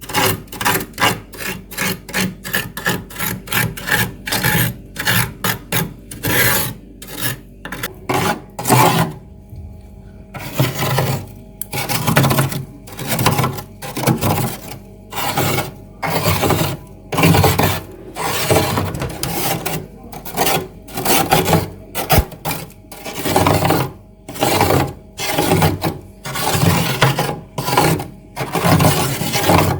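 Freezer frost being scraped off in repeated strokes: quick short strokes about two a second at first, then after a brief pause about nine seconds in, slower, longer strokes about one a second.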